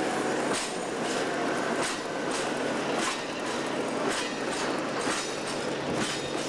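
Freight wagons rolling slowly through a hump yard: a steady rolling rumble with sharp wheel clacks over rail joints and points, coming irregularly about every half second to a second.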